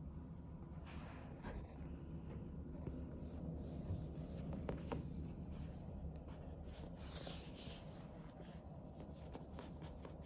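Light scratching and rustling with scattered small clicks over a steady low room hum, with a louder scratchy rustle about seven seconds in.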